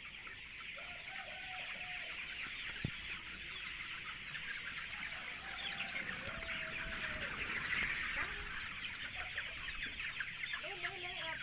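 A large flock of young chickens, a little over a month old, cheeping and clucking together: a dense chatter of many short high calls, with occasional longer, lower calls standing out from it.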